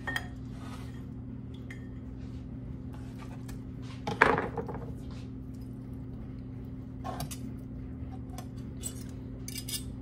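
Metal kitchen utensils (a chef's knife, a fork and a spatula) clinking and knocking against a baking dish and a wooden cutting board as a chunk of cooked roast beef is lifted out and cut, with one louder clatter about four seconds in. A steady low hum runs underneath.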